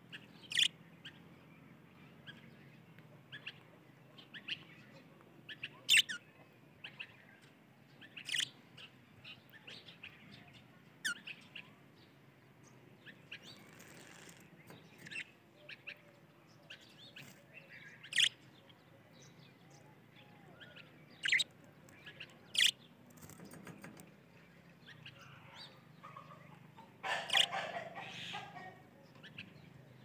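Budgerigars giving short, sharp chirps every few seconds, with a louder bout of chattering near the end.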